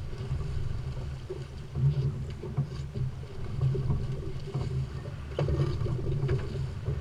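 Boat's inboard diesel engine (Volvo Penta D4-225) running steadily at low speed, a pulsing low drone, with water splashing against the hull. A few sharp knocks come about five and a half seconds in.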